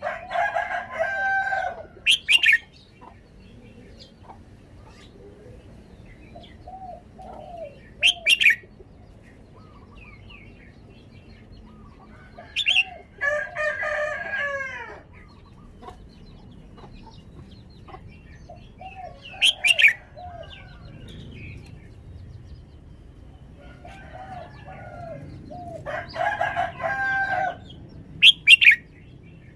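Red-whiskered bulbul singing in five short bouts a few seconds apart. Each bout is a run of warbled notes that ends in a sharp, high note.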